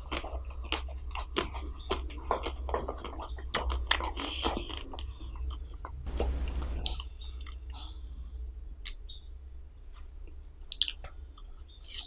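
Close-miked wet chewing and mouth sounds of eating a frozen dessert, dense smacking clicks for the first half. A brief hiss comes around six seconds in, then sparser clicks, and a few sharp wet clicks near the end as a rainbow ice pop goes into the mouth. A steady low hum runs underneath.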